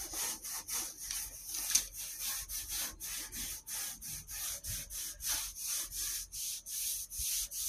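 Cloth rubbing oil into the rusty metal top of an old cabinet in quick, even back-and-forth strokes, about four a second.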